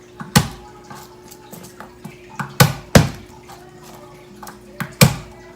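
Kitchen clatter: about five sharp knocks of dishes or utensils against a hard surface, irregularly spaced with two close pairs, over a faint steady hum.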